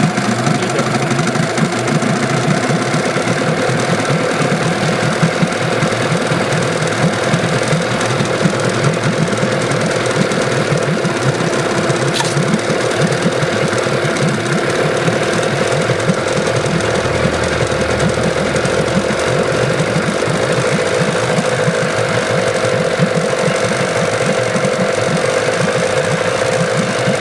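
Yamaha 8 hp two-stroke outboard motor idling steadily with a rapid, even firing beat, holding its idle after a repair for a fault where it would not idle unless choked.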